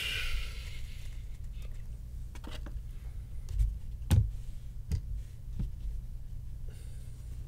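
Trading cards being handled on a table: a short rustle of cards sliding at the start, then a few light knocks, the loudest about four seconds in, as hard card stands are set down, over a steady low hum.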